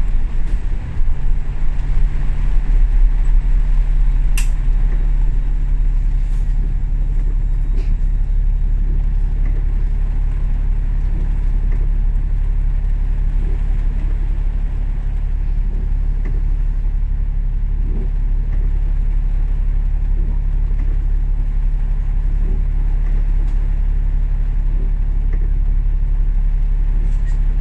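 Alexander Dennis Enviro500 MMC double-decker bus running, heard from inside the passenger cabin: a steady low engine hum with road rumble. There is a single sharp click about four seconds in.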